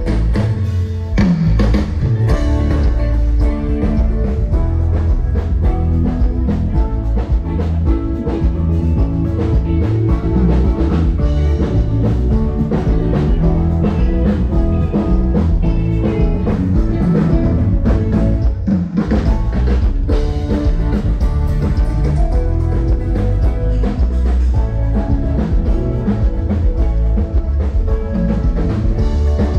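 A live band playing loud music with drum kit and guitar, heavy in the low end, during a soundcheck.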